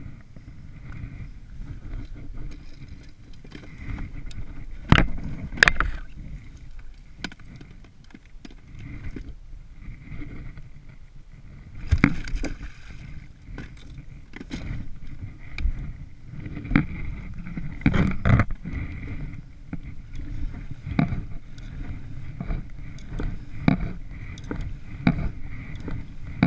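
Plastic sit-on kayak being paddled: sharp knocks of the paddle against the hull and water every one to three seconds, over a steady low rumble.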